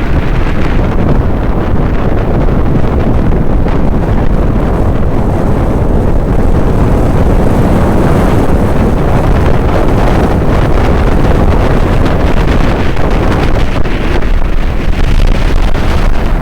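Very strong gusting wind buffeting the microphone: a loud, steady low rumble with no break.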